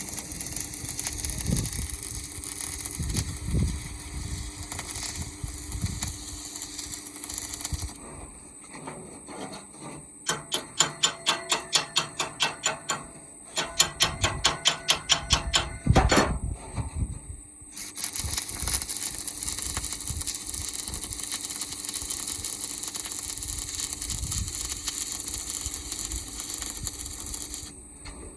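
Two quick runs of hammer blows on metal, about four strikes a second, in the middle. Before and after them, a steady high hiss.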